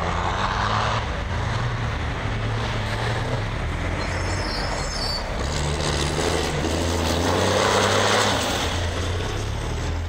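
Dakar rally trucks' diesel engines running under load as they drive past close by on a dirt course. A low, steady engine drone swells about a second in and again around eight seconds in.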